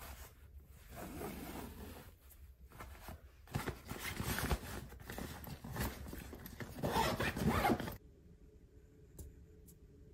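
Backpack zipper being pulled in several strokes, with fabric rustling as the bag is handled; the strongest pull comes near the end, and it cuts off suddenly about eight seconds in.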